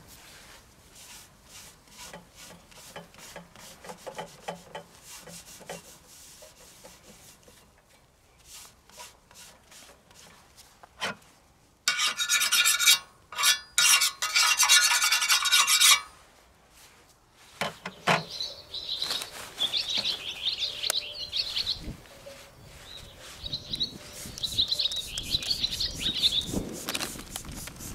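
Paper towel rubbed across a steel camping griddle plate to wipe off cooking grease. It starts as light scattered strokes, turns into loud, brisk scrubbing about twelve seconds in for about four seconds, then goes on as quieter rubbing with high squeaks.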